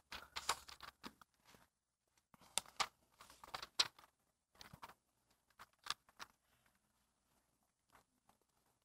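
Faint rustling and short clicks of thin Bible pages being turned and handled on a wooden lectern, scattered through the first six seconds and growing sparse toward the end.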